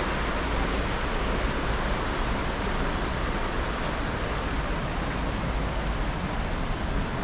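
Steady, loud rush of flowing and falling water from the Cheonggyecheon stream, an even hiss with a low rumble that does not change.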